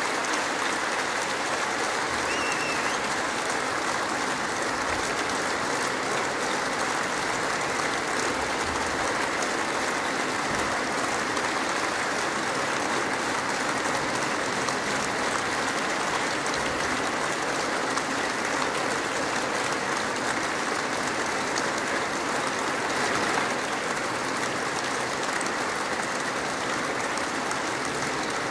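Large audience applauding steadily in a concert hall, a dense, sustained ovation at the close of the performance.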